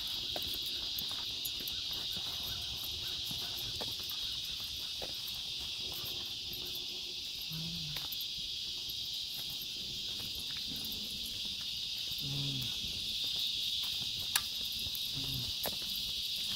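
Steady chorus of insects, an even high-pitched drone that runs without a break, with a few faint clicks now and then.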